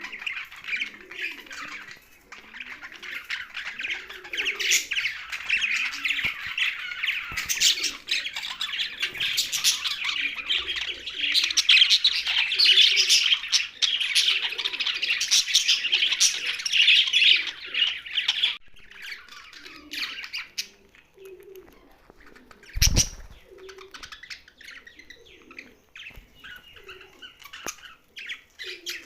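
Young budgerigars chirping and chattering in a dense, continuous warble that thins out to scattered chirps about two-thirds of the way through. A single sharp thump sounds about three-quarters of the way through.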